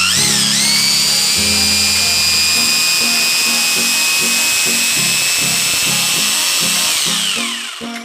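Bosch GBH 200 rotary hammer drill running with a steady high whine after spinning up, then released and winding down with a falling whine about seven seconds in. Background music with a steady beat plays under it.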